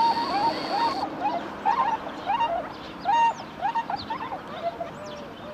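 A flock of swans calling: many short, overlapping honking calls, each rising then falling, coming thick and fast at first and thinning out towards the end.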